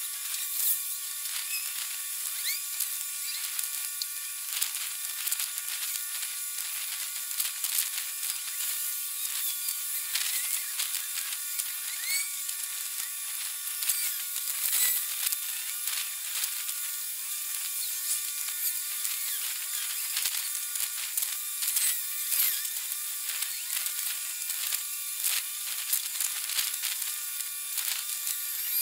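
High-pitched buzzing and crackling with a steady thin whine and rapid irregular clicks, lacking any low end. It is the garbled sound of ambient dockside audio played back at 40 times speed in a time-lapse.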